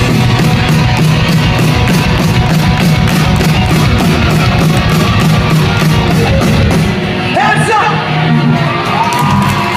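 Live pop-punk band playing loudly, heard from within the crowd: electric guitars and a steady drum and cymbal beat with singing. About seven seconds in, the bass thins out and the voices come through more clearly.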